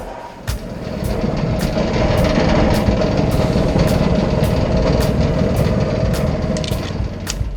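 Samsung DV45H7000 clothes dryer running with a loud, steady rumble that builds over the first couple of seconds. The noise comes from worn drum support wheels, and it does not sound normal.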